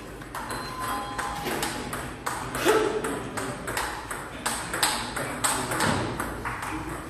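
Table tennis rally: the celluloid ball clicks sharply and irregularly back and forth off the paddles and the table.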